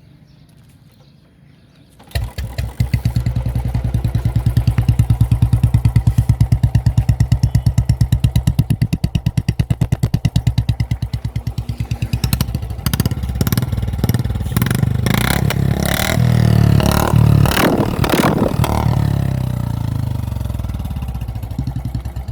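Royal Enfield Standard BS6's single-cylinder engine, breathing through a short bottle silencer on the stock bend pipe, starts about two seconds in and settles into an even dug-dug idle. Past the middle the throttle is blipped in a run of revs, then the engine eases back toward idle near the end.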